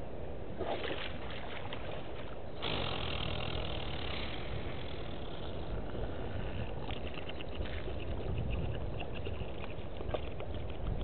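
Water splashing and sloshing as an African elephant wading in a waterhole moves its trunk and legs through the water; a louder wash of water comes about two and a half seconds in, followed by a run of small splashes and drips.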